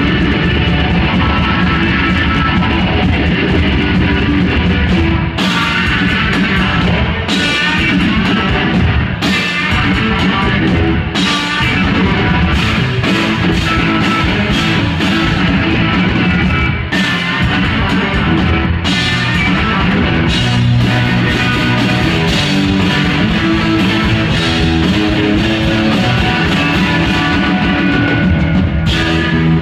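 Live rock music from distorted electric guitar and a drum kit, played loud and steady, with cymbal crashes every couple of seconds through the middle.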